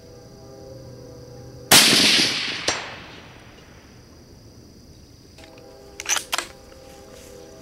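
A single shot from a Savage Model 10 .308 bolt-action rifle about two seconds in, its report echoing away over about a second. About a second after it comes a faint clank, the bullet striking a hanging steel plate. A few sharp clicks follow near the end, over a steady high insect buzz.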